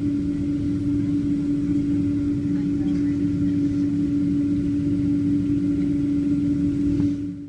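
Airliner cabin noise while taxiing on the ground: a steady low rumble with a strong, even droning hum and faint higher tones, fading out near the end.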